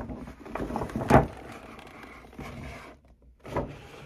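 Paper shopping bag rustling as a cardboard laptop box is slid out of it, with a sharp knock about a second in.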